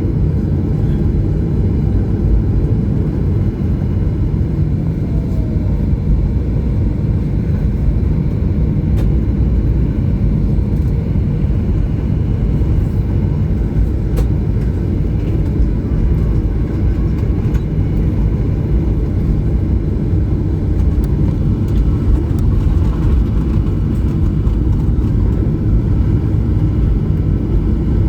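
Steady low rumble inside the cabin of a Boeing 737-900 taxiing on the ground, its CFM56-7B jet engines at idle.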